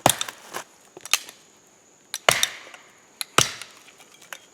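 A length of dead trumpet vine being split down with a blade: sharp strikes about a second apart, several followed by a brief splintering crackle as the fibrous wood cracks along its grain.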